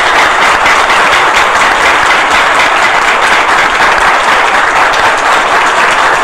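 Audience of many people applauding, dense clapping held at a steady level.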